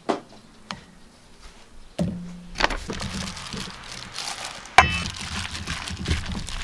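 Chopped kimchi sliding and being scraped out of one stainless steel bowl into another of pancake batter, with one sharp ringing clank of metal bowl on metal bowl a little before five seconds in. After that, a plastic-gloved hand squishes the kimchi into the batter, crackling and squelching. The first two seconds hold only a few light clicks.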